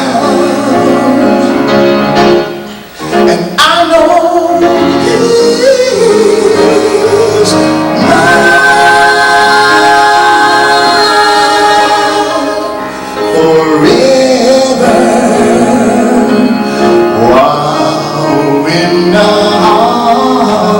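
A gospel vocal group singing in harmony, breaking off briefly about three seconds in, then holding a long chord in the middle.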